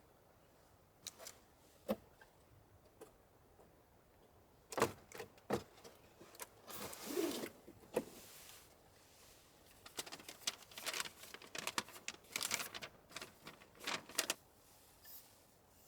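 Scattered light clicks and taps with rustling, as small objects are handled, growing into a busy run of clicking and rustling about ten seconds in that stops shortly before the end.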